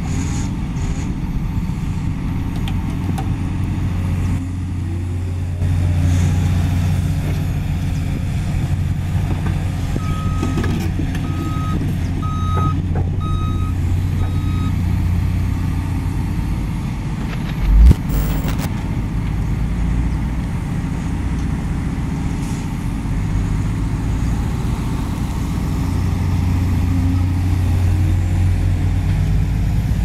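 JCB tracked excavator's diesel engine running steadily while it digs, growing louder about six seconds in. Partway through, a reversing alarm beeps about five times, once a second, and a few seconds later a single loud thump is heard.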